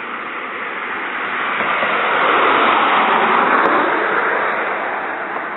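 A car driving past without honking: its tyre and engine noise grows, peaks about halfway through, then fades away.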